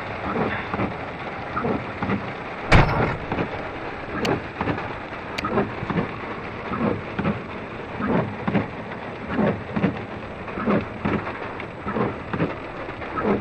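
Heavy rain falling, with a regular pulse about twice a second and one sharp knock about three seconds in.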